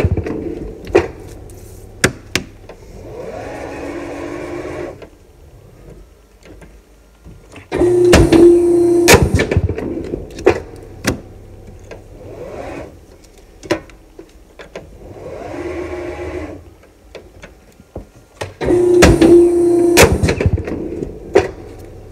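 Polar 66 guillotine paper cutter making two cuts about eleven seconds apart. Each cut is a loud burst of about a second and a half, a steady hum with sharp clacks as the blade comes down through the paper stack and returns. Between the cuts there is quieter machine whirring.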